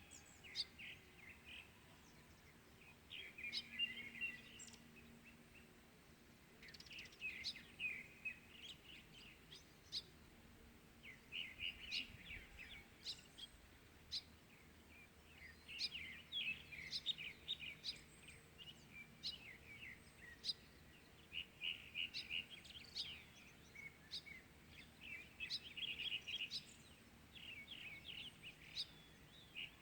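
Birds singing and chirping in a morning chorus, with repeated bursts of short, high chirps throughout, heard faintly against a quiet background.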